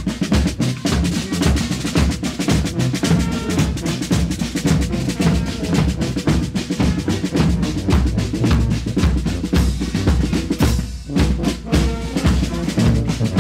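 Carnival brass band playing: a driving beat on bass drum and snare drum under brass, with tubas carrying the bass line. The music breaks off for a moment about eleven seconds in, then carries on.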